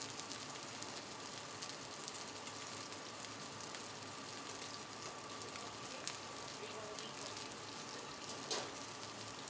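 Chicken wings frying on a hot flat-top griddle: a steady sizzling hiss with scattered small pops.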